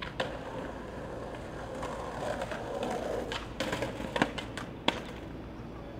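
Skateboard rolling on asphalt, with several sharp clacks of the board, the loudest about five seconds in.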